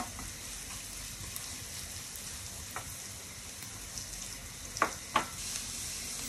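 Chopped onion and garlic sizzling steadily in hot ghee in a nonstick frying pan. A few light knocks of the wooden spatula come as it is stirred: one at the start, one about three seconds in, and two louder ones close together near the end.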